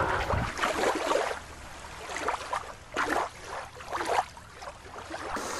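Water sloshing and splashing, with several brief splashy surges about a second apart.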